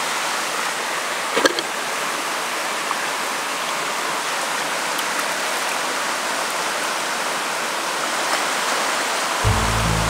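Steady rushing of a shallow stream running over rocks, with a short clatter about a second and a half in. Background music comes in near the end.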